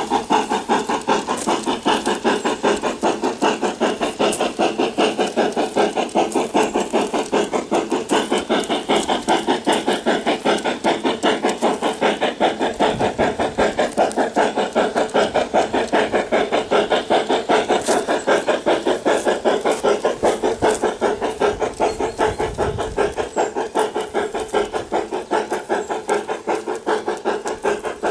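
Sound unit of a Bachmann K27 model steam locomotive playing steady steam-exhaust chuffs in a quick, even rhythm as the engine runs along the track.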